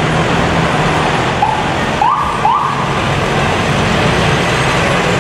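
Fire engines' diesel engines running as the trucks roll slowly past, with two short rising electronic siren chirps about two seconds in.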